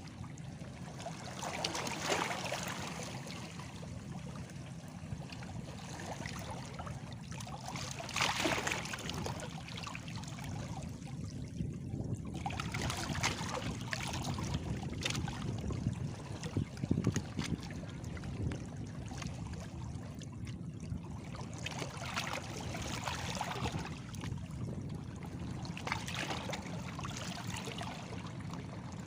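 Small sea waves washing against stones, a steady low rumble with a splashing wash that swells every several seconds.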